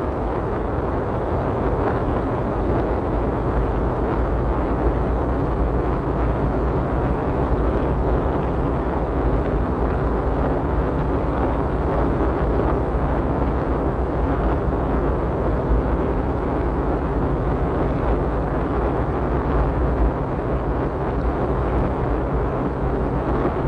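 Steady road and engine noise of a car driving, heard inside the cabin.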